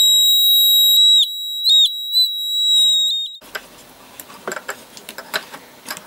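Small 12 V piezo buzzer sounding one steady, high-pitched beep tone. After about a second the tone drops and wavers as its opening is closed off, and it cuts off about three and a half seconds in. Soft handling noise of wires and parts follows.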